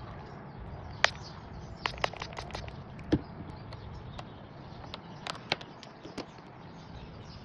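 Scattered light clicks and taps of a plastic dent-puller kit being taken apart and hot glue being scraped off a car body panel with a plastic scraper, over a faint steady background.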